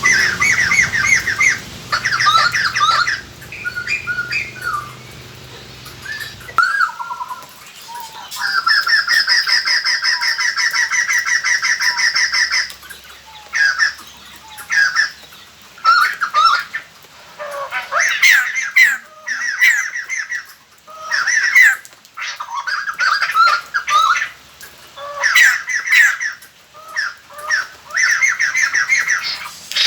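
Laughingthrushes giving loud chattering calls in bursts of fast repeated notes, with a long rapid rattle lasting about four seconds near the middle. This is a lure recording used to call wild birds in.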